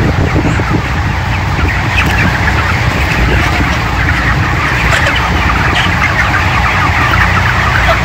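A large flock of 29-day-old broiler chickens chirping and clucking, many short calls overlapping throughout. Under them runs the steady low drone of the shed's nine ventilation fans.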